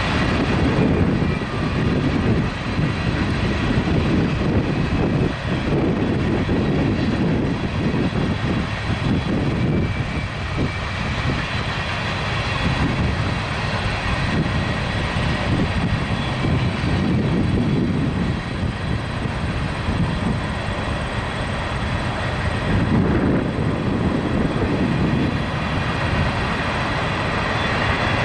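Freight train cars rolling past steadily: a continuous rumble of steel wheels on the rails, swelling and easing as the cars go by.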